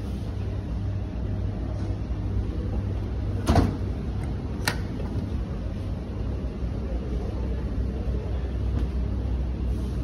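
Dishwasher door and racks being handled: a thump about three and a half seconds in and a sharp click about a second later, over a steady low hum.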